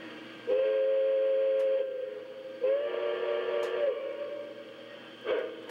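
Steam-whistle sound from a Lionel O-scale Pennsylvania Railroad K4s model locomotive: two blasts of a chime whistle, each about a second and a half long, with a short gap between them.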